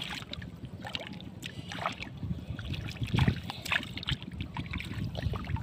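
Hands splashing and sloshing in shallow muddy water, in irregular splashes, the loudest about three seconds in.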